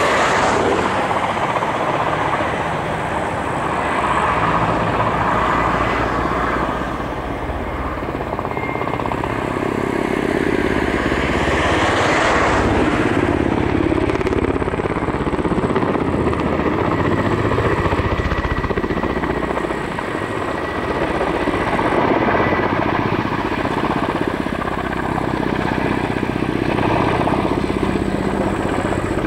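Kamov Ka-52 attack helicopter in flight, its coaxial rotors and engines running steadily. The sound swells and eases a little as the helicopter manoeuvres, with a faint steady whine over the rotor noise.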